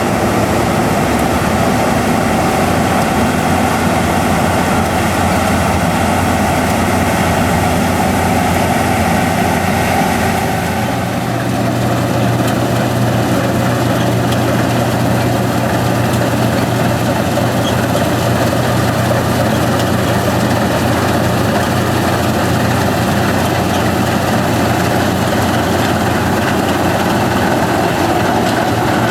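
Farm machinery engines running steadily during the wheat harvest, from the combine harvester and the grain-carting tractors. About eleven seconds in the engine note changes to a different, lower hum.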